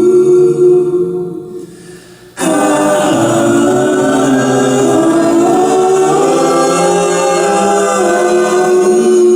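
Several voices singing close a cappella harmony in long held chords. The first chord fades out about two seconds in, and a new chord starts abruptly about half a second later and is held, the parts shifting slowly.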